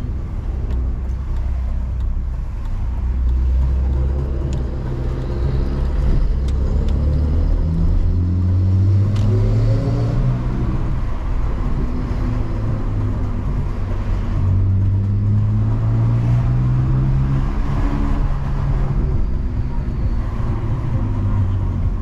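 BMW E46 325i's straight-six engine and road noise heard inside the cabin while driving at low speed. The engine note rises twice as the car accelerates and drops back in between.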